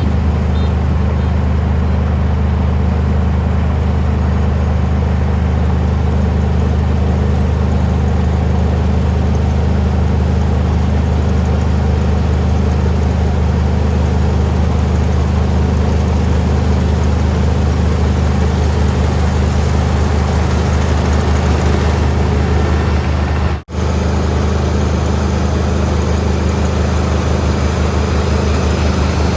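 Kubota combine harvester's diesel engine running steadily, with a deep, even drone. The sound cuts out for an instant about three-quarters of the way through, then carries on unchanged.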